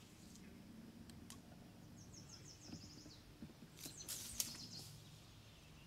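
Quiet outdoor ambience with a low steady hum, a songbird singing a rapid trill of falling notes about two seconds in, then a short cluster of sharp rustling clicks.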